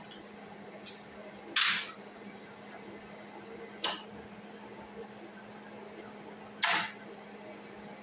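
Three short, sharp clicks and clacks from handling a MIG welding gun and its nozzle while threading flux-core wire, over a steady low hum.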